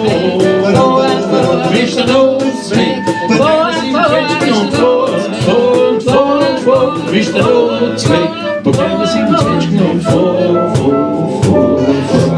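Acoustic guitars strummed in a steady rhythm under a wordless lead melody that bends and slides in pitch: a small acoustic band playing an instrumental break.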